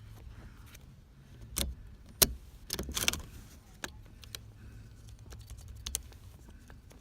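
A few sharp clicks and rattles of small hard objects being handled, the loudest a little over two seconds in and a short cluster about three seconds in, over a steady low hum.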